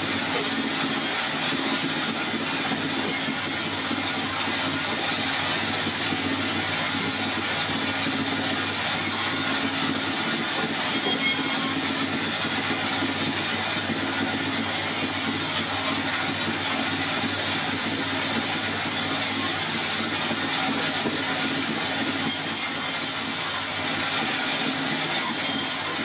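Vertical band saw running steadily while a log is pushed through it and ripped lengthwise, the blade cutting the wood. A steady machine drone, with a higher hiss from the cut that comes and goes every second or two.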